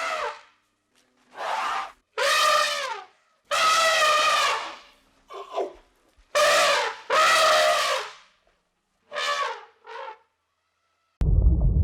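An animal giving a series of about eight loud pitched calls, each under a second long, several dropping in pitch at the end. Near the end the calls give way abruptly to a steady low rumble.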